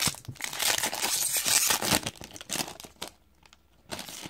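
Plastic wrapper of a hockey card pack being torn open and crinkled, in a dense spell of crackling for about two seconds, then a few scattered crinkles.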